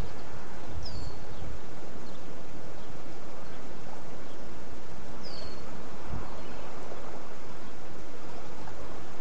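Steady outdoor noise of wind over open water, with low wind rumble on the microphone near the start and again about six seconds in. Two short, high bird chirps sound, one about a second in and one about five seconds in.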